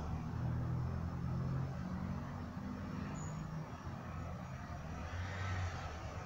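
Low, steady engine rumble of motor traffic, its pitch shifting a few times.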